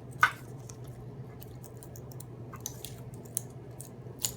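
Wrapping being peeled off a battery cell pack: one sharp crackle about a quarter second in, then a few faint crinkles, over a steady low hum.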